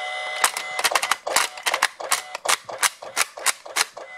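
A Cars 3 Lightning McQueen toy moving its car: a fast run of sharp clicks and clatters, about five a second, with a steady electronic tone through the first second.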